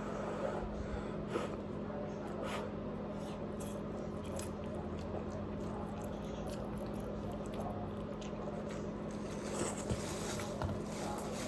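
Close-up eating sounds of spicy instant noodles being chewed, with a few short clicks, over a steady low hum.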